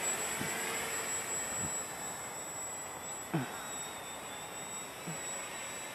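Walkera Hoten-X quadcopter's electric motors and propellers whirring in flight, faint and distant over a steady hiss, the pitch wavering as the throttle changes. A few short downward-sliding tones sound through it, the loudest about three and a third seconds in.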